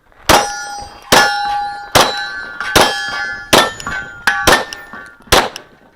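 Pistol shots at a steady pace, roughly eight of them a bit under a second apart, each followed by the ringing clang of a hit steel target.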